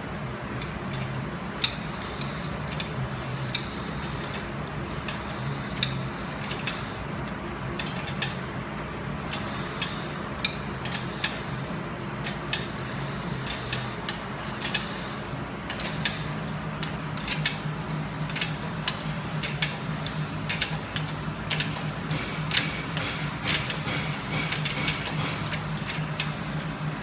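Irregular metallic clicks and ticks of hand tools, a ratchet wrench among them, tightening the top nut onto a coilover shock shaft that is held with vice grips, over a steady low hum.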